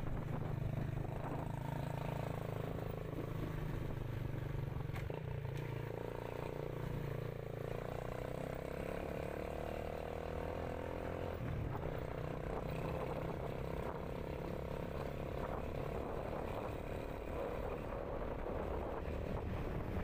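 Small motorcycle engine running while riding. Its pitch climbs slowly, then drops back about eleven seconds in before running on steadily.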